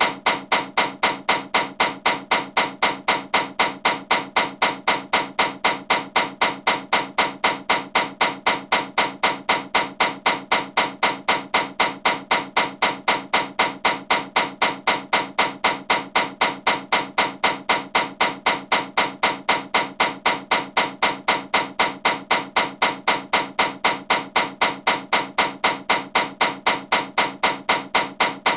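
Ceiling fan running with a loud, sharp knock repeating very evenly, about three times a second.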